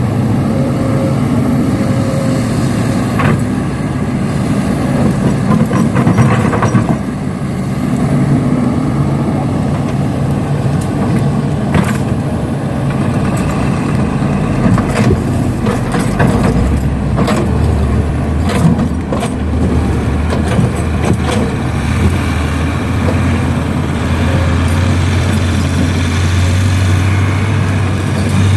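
Heavy diesel engines of an excavator and dump truck running steadily, with scattered metallic clanks. About halfway through, a deeper steady engine hum comes in and grows louder toward the end.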